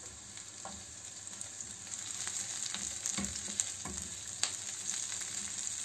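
Chopped onions sizzling in butter in a nonstick frying pan on low flame, being softened without browning, with irregular taps and scrapes of a silicone spatula stirring them, more frequent from about two seconds in.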